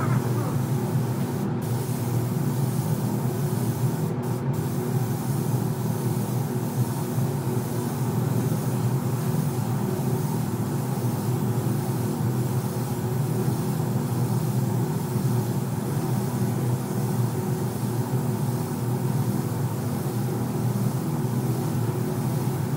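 Compressed-air spray gun hissing steadily as it sprays a car's body panels, over a steady machine hum from the spray booth.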